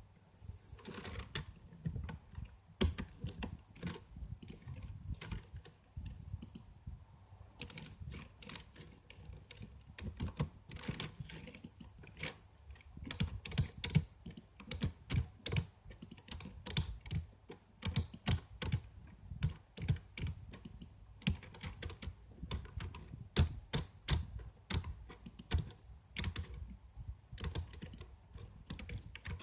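Computer keyboard being typed on: runs of key clicks at an uneven pace, with short pauses between bursts.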